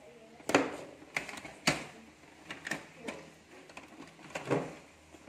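Plastic casing of an Epson L3210 printer clicking and knocking as it is handled and fitted back together, about seven sharp, irregular clicks, the loudest about half a second and just under two seconds in.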